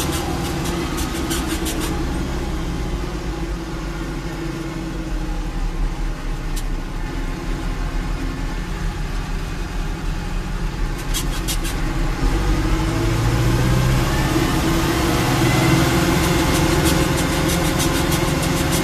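Landini Rex tractor's diesel engine running hard at road speed, heard from inside the cab. The drone swells louder and lower about twelve seconds in.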